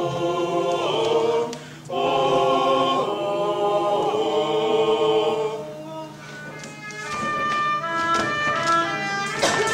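Several voices singing held chords together, breaking off briefly about two seconds in. From about six and a half seconds a run of short, higher notes takes over.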